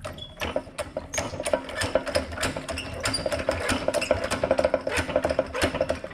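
Hand ratchet clicking quickly, about four to five clicks a second, as it turns a press to push a new ball joint into a suspension control arm.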